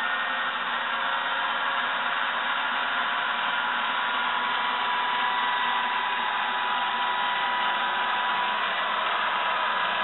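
Sturtevant upright vacuum cleaner from about 1915 running steadily at speed, its motor and fan giving a steady whine over a rush of air.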